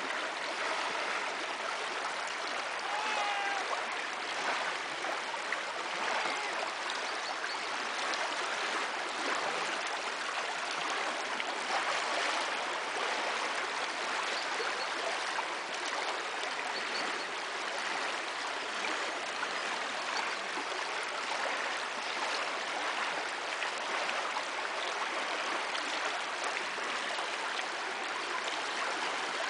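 Shallow river water flowing and babbling over stones, a steady, even rush of water.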